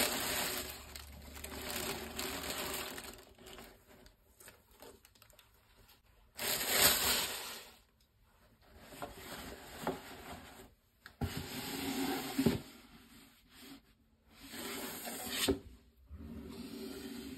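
Tissue paper wrapping crinkling and rustling as sneakers are lifted out of their shoebox and handled. It comes in several bursts with short quiet gaps, the loudest about halfway through.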